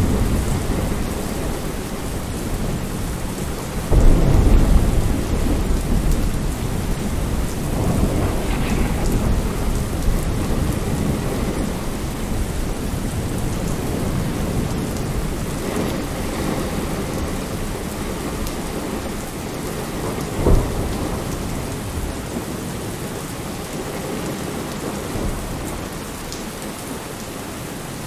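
Steady rain falling, with thunder. A heavy rumble starts suddenly about four seconds in and fades over several seconds, and a shorter, sharper thunderclap comes about twenty seconds in.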